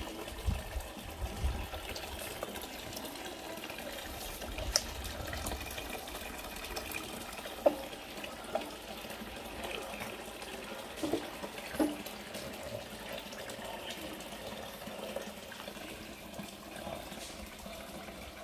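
Water splashing and trickling as hands wash a wet pug's face, with a few small sharp splashes or knocks.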